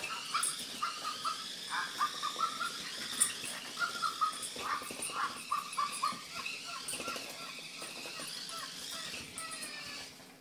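Small terrier-type dogs whining and yipping in quick, short high-pitched notes while playing tug over a toy. The sound stops near the end.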